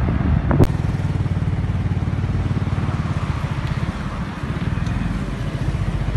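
Motorcycle engine running steadily while riding, a fast, even pulsing throb, with one sharp click about half a second in.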